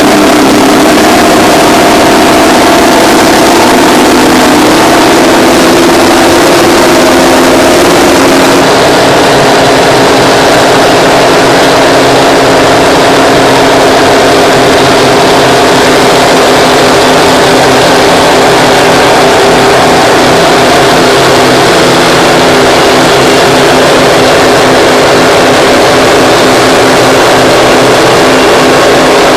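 Terex 82-80 bulldozer's twin Detroit Diesel 6-71N two-stroke engines running loud and under load while pushing scrapers. The engine note is steady and shifts slightly about eight seconds in.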